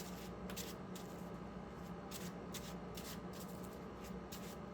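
Tarot cards being shuffled by hand: a run of soft, irregular flicks and riffles, a few each second, over a faint steady hum.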